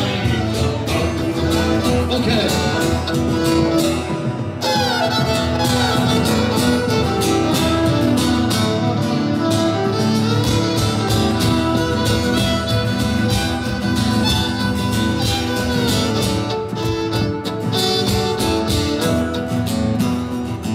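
Music with guitar and fiddle, changing abruptly about four and a half seconds in.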